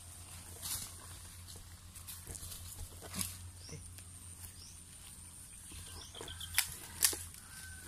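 Splashing and sharp knocks as a hand reaches into a shallow creek to check a set hook line, with two loud splashes near the end. Faint short rising chirps in the background.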